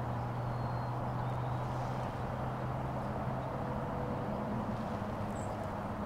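Steady low outdoor rumble with a constant low hum under it, and a couple of faint, brief high chirps.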